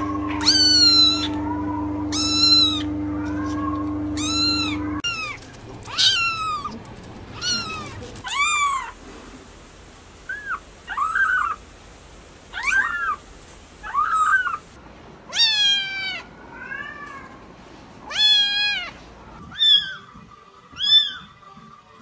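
Kittens meowing: a string of short, high-pitched meows, each rising then falling, about one a second, from several different kittens. A steady low hum sits under the first few seconds.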